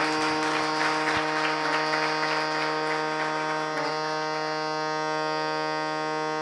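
Harmonium and tanpura sounding a steady, buzzy drone on a single tonic pitch, with a shimmer from the tanpura strings, as the accompanists set the drone for a Hindustani classical vocal recital.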